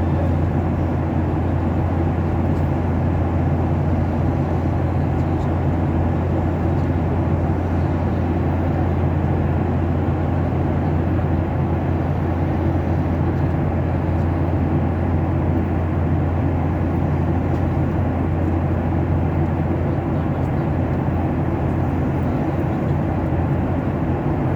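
Steady drone of an aeroplane cabin in flight: engine and airflow noise with a strong low hum, unchanging throughout.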